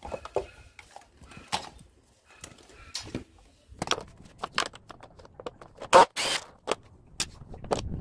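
Scattered clicks, knocks and rattles of a dehumidifier's compressor, wiring and plastic base being handled and pulled apart by hand on concrete, with one louder knock about six seconds in.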